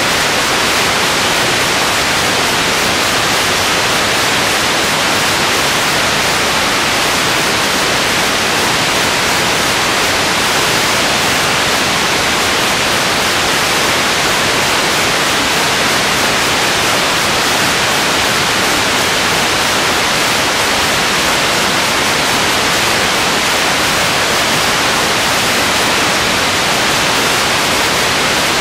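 Steady, even hiss of static, unchanging throughout, with no other sound heard.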